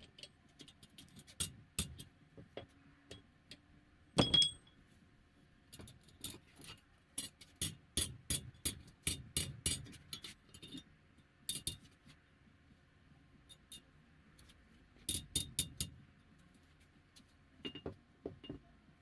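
Steel tools and stock clinking and tapping against each other in irregular clusters of sharp metallic knocks. The loudest comes about four seconds in and rings briefly.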